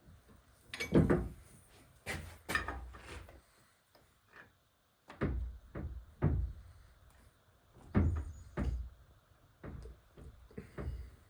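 Irregular metallic knocks and clunks, about a dozen over several seconds, as transmission parts and tools are handled and set down.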